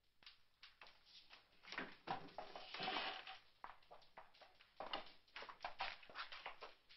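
A class of pupils getting up from wooden school desks: a run of scattered knocks and clatter from desks and books, with shuffling movement, heaviest about two to three seconds in.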